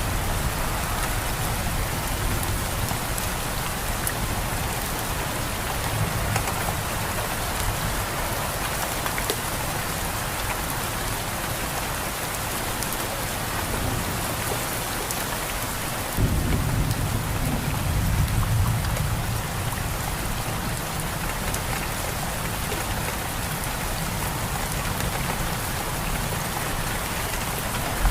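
Steady rain falling, with a low rumble of thunder that starts suddenly about halfway through and rolls on for a few seconds.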